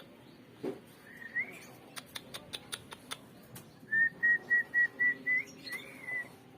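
High whistled notes: a single rising note about a second in, then a quick run of about seven short notes on one pitch and a longer arching note, with light clicks in between.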